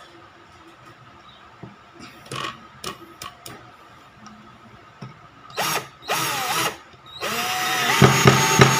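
Black & Decker GC1800 18 V cordless drill/driver driving a gypsum screw into hard wood, after a few light handling clicks. The motor gives two short trigger bursts that change pitch, then a longer, louder run with sharp clicks near the end. At torque setting 18 it stops short of sinking the screw head flush.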